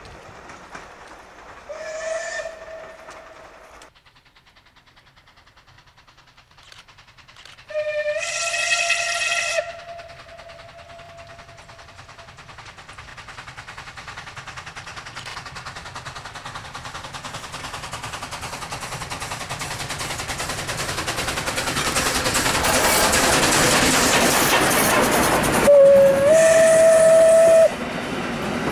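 Steam locomotive whistle blown three times: a short blast about two seconds in, a longer one about eight seconds in, and another near the end, each stepping up slightly in pitch. Between the blasts the train's steam and running noise grows steadily louder as it approaches, then the coaches roll past.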